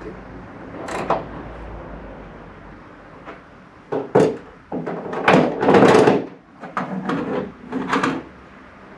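A string of knocks and bangs with a longer scraping rattle in the middle, the sound of parts or panels being handled and moved.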